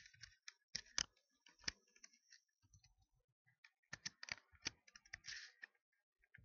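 Faint, slow typing on a computer keyboard: scattered single keystroke clicks with pauses between them, and a small run of keystrokes about four seconds in.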